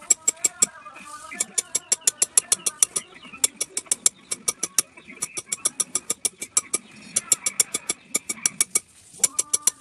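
A hammer tapping a steel stamping tool into carved leather in quick, even taps, about six a second, in runs broken by brief pauses.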